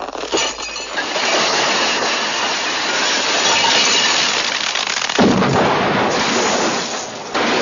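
Comedy sound effect of a grossly bloated man's body bursting: a sudden blast, then a long wet spray of splattering food with crashing and clinking, surging louder about five seconds in.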